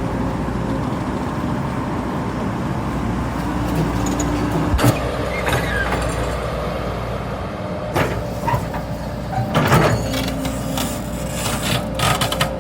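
Excavator's diesel engine running steadily, with sharp knocks about five and eight seconds in and a short burst of knocks near ten seconds.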